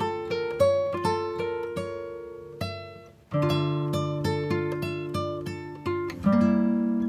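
Background music of plucked acoustic guitar playing a melody of picked notes, with a brief pause about three seconds in before the next phrase.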